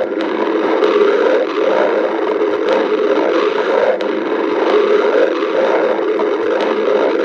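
Hungry stomach growling: loud, continuous gurgling rumble of the gut that goes on without a break.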